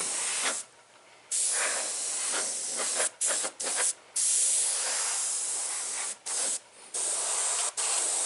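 Airbrush spraying paint in a series of hissing passes that stop and start as the trigger is pressed and released, laying down a heavy coat.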